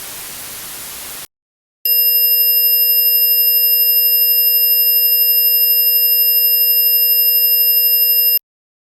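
Simulated tinnitus sounds. A steady hiss ends about a second in. After a short silence comes a loud, steady ringing of several pure tones sounding together, the lowest a mid-pitched tone and the rest reaching very high. The ringing lasts about six and a half seconds and then cuts off suddenly.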